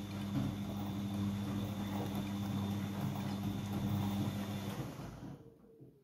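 Siemens iQ100 front-loading washing machine turning its drum during the wash cycle: a steady motor hum with tumbling laundry, which stops about five seconds in as the drum comes to rest.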